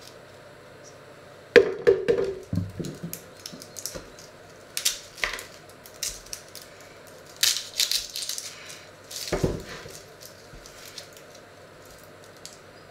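Dry onion skins crackling as onions are peeled by hand with a small knife, with sharp clicks and knocks of the knife and onions on a wooden cutting board. The sounds come in several short bursts, the loudest about a second and a half in.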